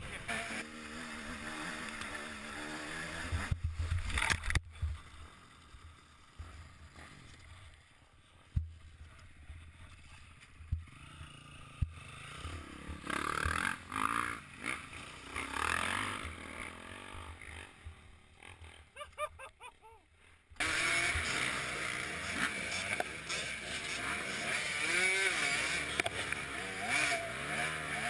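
Helmet-camera sound of off-road motorcycle engines: a dirt bike running for the first few seconds, then a quieter stretch from a jet ski on the water. About two-thirds through it cuts suddenly to a motocross bike's engine running loudly, its revs rising and falling.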